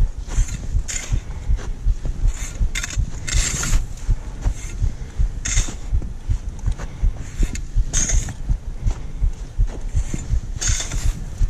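Footsteps crunching on snow, a short scrape roughly every second at an uneven pace, over constant low knocking and rubbing.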